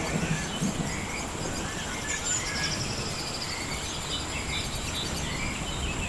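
Jungle ambience: a steady high-pitched insect drone, with scattered bird chirps and calls over a low background rumble.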